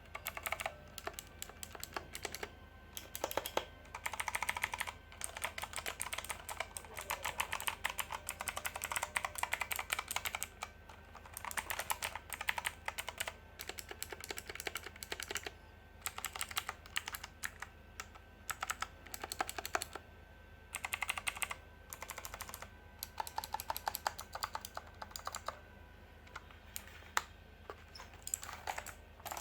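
Armaggeddon MKA-5R RGB Falcon mechanical keyboard being typed on: runs of rapid key clicks broken by short pauses.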